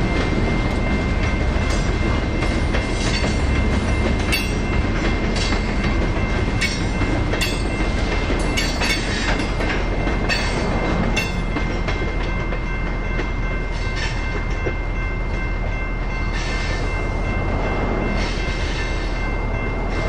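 Freight train of covered hopper cars rolling through a grade crossing, its wheels clacking over the rail joints, while the crossing bell rings steadily. The last cars clear about halfway through, and the bell keeps ringing after the train has gone.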